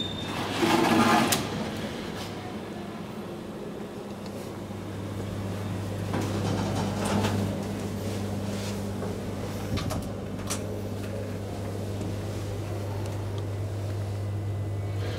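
Traction elevator in use: the car's doors slide about a second in. From about five seconds in there is a steady low hum from the car as it travels, with a few faint clicks.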